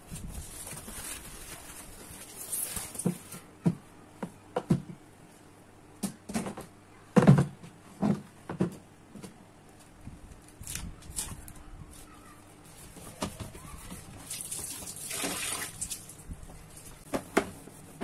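A white plastic dish-drying rack being handled and set down: irregular knocks and clatters of hard plastic, the loudest about seven seconds in, with brief rustling in between.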